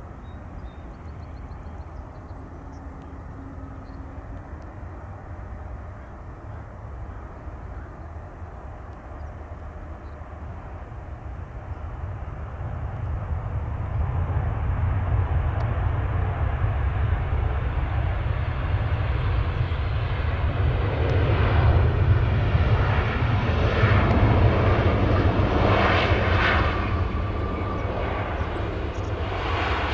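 Boeing 737-800 jet airliner arriving, the sound of its twin CFM56 turbofan engines building from a faint rumble to loud as it passes close, loudest a little past halfway, then easing slightly near the end.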